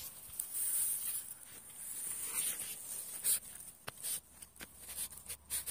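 Close handling noise: scattered rustles and sharp clicks, irregular and uneven in loudness, as a freshly caught climbing perch is held up on the hook.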